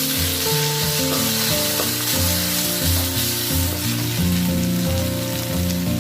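Food sizzling as it fries in a pan, a steady hiss, over background music.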